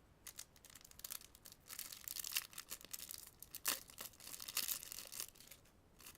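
A foil Yu-Gi-Oh booster pack wrapper is torn open and crinkled. The crackling comes in an irregular run that starts just after the beginning and stops about a second before the end, with its sharpest rips in the middle.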